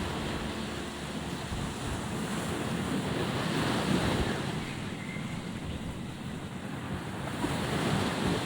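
Sea waves washing onto the shore with wind buffeting the microphone, swelling about four seconds in and again near the end.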